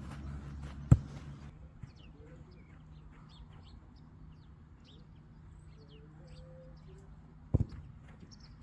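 A football is kicked twice, with a dull thud about a second in and again near the end. Small birds chirp faintly in between.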